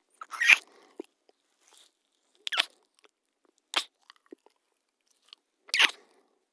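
Kissing sound effect: four short wet lip smacks, spaced one to two seconds apart, the first the loudest.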